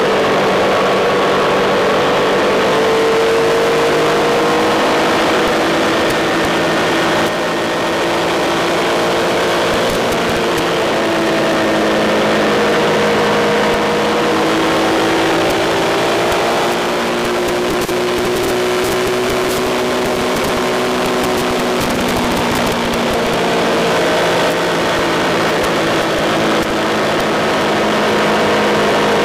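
Triumph Tiger 1200's three-cylinder engine pulling hard at track speed, its pitch rising and falling through the bends with a few sudden brief dips, over loud wind rush on the bike-mounted microphone.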